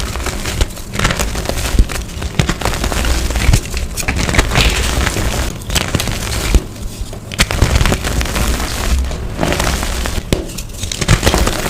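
Blocks of dyed gym chalk being crushed and crumbled close to the microphone: dense, crisp crunching full of sharp cracks and snaps, with a deep thud under the heavier crushes.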